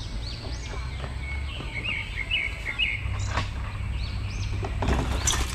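Birds chirping outdoors, with repeated short, high arching calls and a quick run of chirps in the middle, over a steady low rumble such as wind on the microphone. A single sharp click about three and a half seconds in, and a burst of noise near the end.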